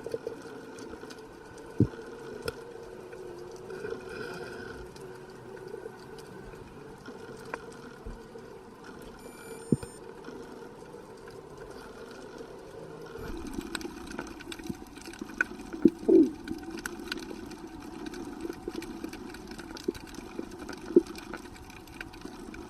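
Underwater sea ambience: a steady low rushing with scattered sharp clicks and pops. About halfway through, a low hum comes up and stays.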